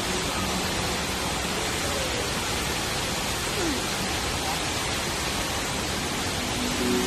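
The Rain Vortex, a tall indoor waterfall pouring through the oculus of a glass dome into a basin far below, making a steady, even rush of falling water.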